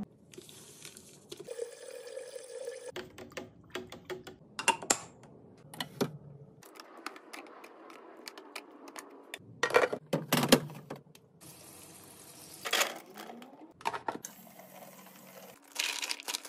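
Aluminium cans, fruit and plastic storage bins being handled and set down: a run of clicks, knocks and clatters over a steady hiss. The sound changes abruptly several times, and the loudest knocks come about ten seconds in.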